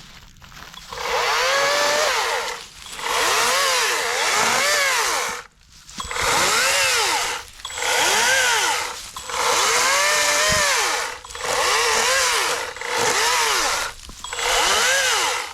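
Atlas 40-volt brushless battery chainsaw cutting wood in about eight short bursts. Its motor whine dips in pitch and recovers as the chain bites into the wood.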